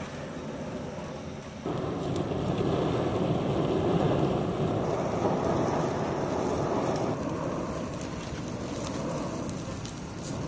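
Hand-cranked forge blower driving air through a pipe into a charcoal fire: a steady rushing of air and fire, stepping up in loudness about two seconds in.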